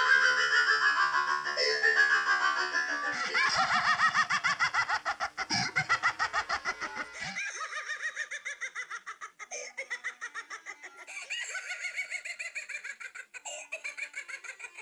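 Pitch-altered cartoon villain laughter: a rapid run of high laughing pulses, louder in the first half, then quieter and cut into short repeated segments.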